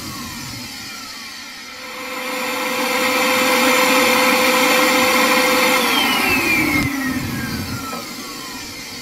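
Small electric suction motor of a homemade cigarette-smoking machine starting up and whirring steadily with a steady hum, then switched off about six seconds in and winding down with a falling whine.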